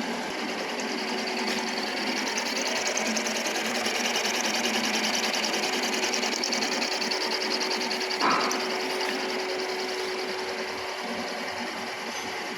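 Milling machine running with a fast, even mechanical rattle over a steady hum, a little louder in the middle; a single sharp knock about eight seconds in.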